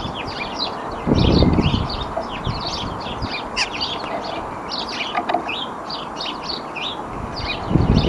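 Small garden songbirds chirping and twittering in a dense, quick stream of short high notes, with a brief low rumble about a second in and again near the end.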